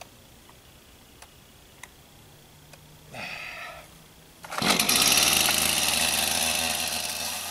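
Stihl MS251C two-stroke chainsaw being pull-started: a short pull about three seconds in, then it catches on the next pull about a second later and runs steadily loud. It is starting after already firing once on choke, with the choke moved back off.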